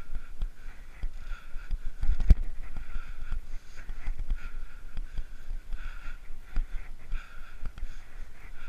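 Bicycle on 700x32 tyres rolling fast over a paved path: a steady low rumble with many small knocks and rattles from the bumps, and a sharp knock about two seconds in. A higher hiss swells and fades about once a second.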